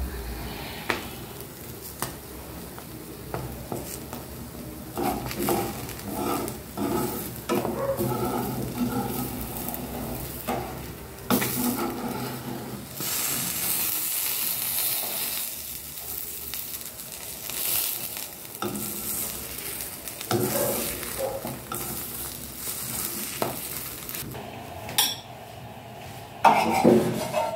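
An egg sizzling as it fries in a nonstick frying pan, with a metal spoon scraping and tapping against the pan as it spreads and folds the egg. There is a louder clatter near the end.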